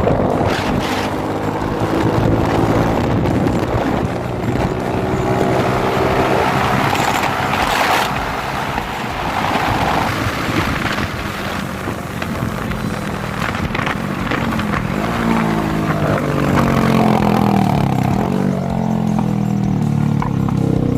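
Suzuki Smash single-cylinder four-stroke motorcycle engine breathing through a new aftermarket YRS muffler. It runs with the engine pitch rising and falling as the throttle is worked, climbing again near the end.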